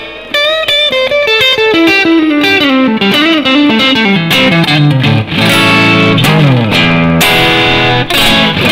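Yamaha Pacifica PAC212 electric guitar played through a Yamaha THR10 amp on a crunch setting with a little reverb: a quick lead line stepping downward in pitch, then held notes with slides.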